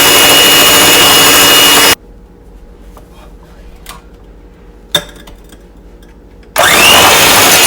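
Electric mixer whipping egg whites and sugar toward stiff peaks for a meringue, running with a steady high whine. It switches off about two seconds in, a single knock sounds about five seconds in, and the mixer starts again near the end with its whine rising as the motor spins up.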